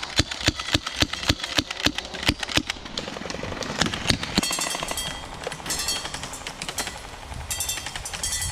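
Airsoft guns firing: a string of single shots, about three a second, for the first three seconds, then short rapid-fire bursts.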